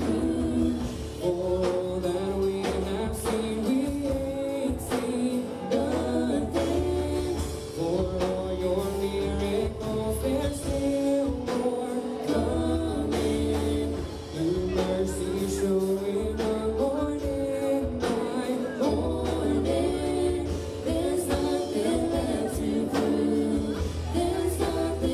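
Gospel worship music: voices singing a melody over a held low bass, which drops out briefly a few times.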